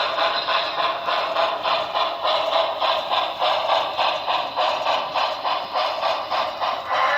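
Onboard sound system of an HO-scale Broadway Limited Paragon4 New York Central Hudson steam locomotive model playing steam exhaust chuffs, a steady rhythm of about three to four chuffs a second. Thin and tinny through the model's small speaker, with no bass.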